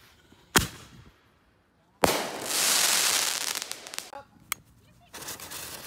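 Backyard consumer firework going off: a sharp bang about half a second in, then about two seconds in a loud burst that runs on as a long rushing hiss with crackling, a single sharp pop a couple of seconds later, and hissing again near the end.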